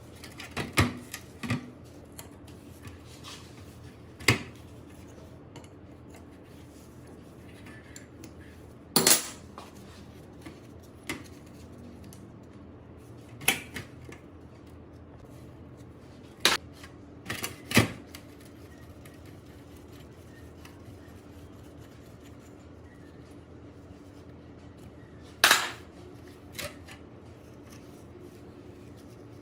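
Metal parts and hand tools clinking and clanking as they are handled and set down: about a dozen separate sharp knocks at irregular intervals, with short quiet gaps between.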